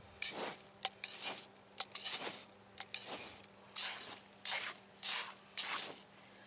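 A firefighting hose nozzle spraying water in short hissing bursts onto a smouldering log, about eight spurts with a few sharp clicks between them, the spray striking the hot embers and steaming.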